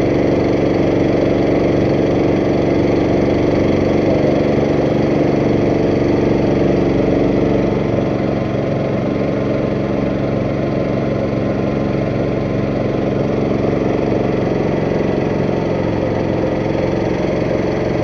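Boat engine running steadily under way, easing off slightly about eight seconds in.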